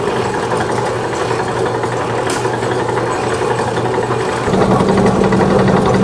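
A machine's motor runs with a steady mechanical hum, switched on just before; about four and a half seconds in its hum changes and grows a little louder.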